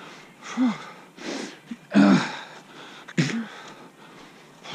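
A runner breathing hard in a steady rhythm: sharp puffing exhales, some with a short voiced grunt, about one a second.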